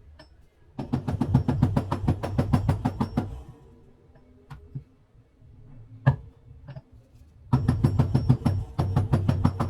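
Rapid hammer blows on metal, about eight a second, in two runs with a few single taps between them: a wheel bearing being driven in or out of a motorcycle's front hub.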